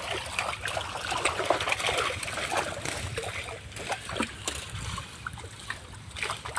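Many small fish thrashing at the surface inside a gathered seine net: an irregular run of quick little splashes over trickling water.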